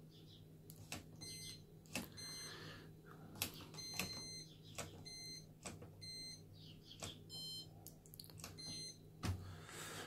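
Hoover Dynamic Next washing machine's control panel beeping as the programme selector dial is turned: a short electronic beep with a click at each step, about seven times at roughly one-second intervals.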